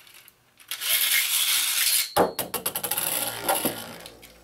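Toy top plate launched into a plastic stadium: a loud rasping whirr from the launcher for about a second and a half, then a sharp clack as it lands, followed by a fast, fading rattle of clicks as it spins and skitters on the plastic.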